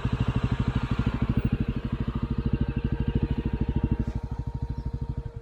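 Single-cylinder motorcycle engine running steadily at low revs, a rapid even thumping that fades slightly toward the end.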